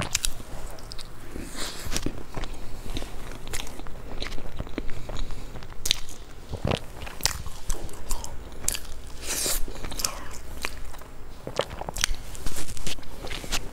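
A person biting into and chewing a flaky baked pastry close to a clip-on microphone: irregular crisp crunches and crackles throughout, with louder bites near the end.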